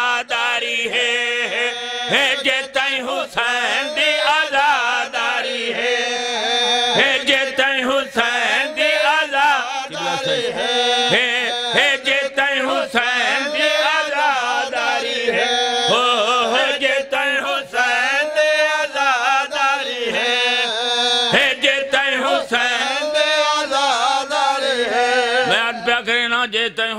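Men's voices chanting a devotional qasida together: a lead reciter sings and several men chant along in unison, a continuous melodic chant with long held notes.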